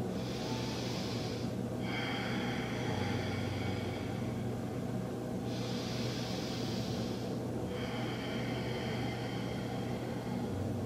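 A person's slow, deep breathing: two long, airy breaths, each about two seconds, the second coming about five seconds after the first, over a steady low hum.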